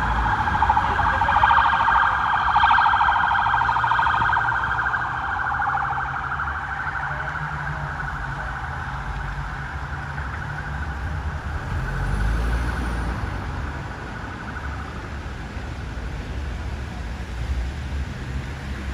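Police car siren sounding a fast yelp, loudest in the first few seconds and then fading away over about ten seconds as it moves off. Low traffic rumble runs underneath, with a vehicle passing about twelve seconds in.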